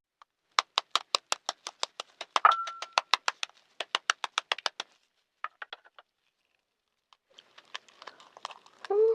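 Rapid taps cracking a balut (fertilized duck egg) shell against a bowl, about six a second; one hit leaves the bowl ringing briefly. Near the end the shell crackles and the egg squelches as it is broken open.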